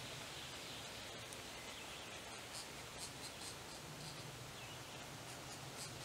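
Faint outdoor background hiss with a low steady hum, broken by a few soft, brief scratchy clicks around the middle and again near the end.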